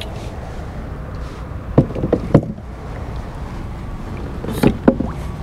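Gear being handled aboard a plastic fishing kayak: a few short knocks and clicks, about two seconds in and again near the end, over a steady low rumble.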